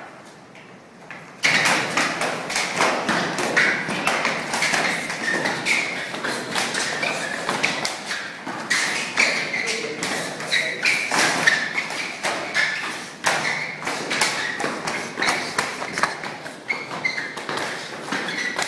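Rapid, irregular thuds and taps of punches thrown with padded hockey gloves, landing on helmets and bodies as two people trade blows. The blows start abruptly about a second and a half in.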